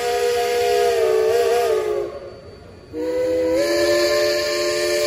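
Steam locomotive's chime whistle blowing a chord of several tones in two long blasts, with a break of about a second between them and steam hissing under the sound.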